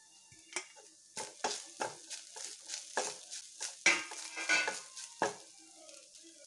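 Wooden spatula stirring grated coconut as it dry-roasts in a kadai: a run of irregular scrapes and knocks against the pan from about half a second in until a little past five seconds.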